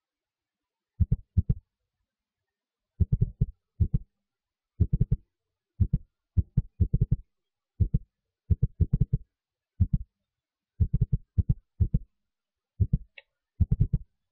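Clusters of short, deep thuds, two to four at a time, coming about once a second at an uneven pace, with dead silence between. There is a brief high chirp near the end.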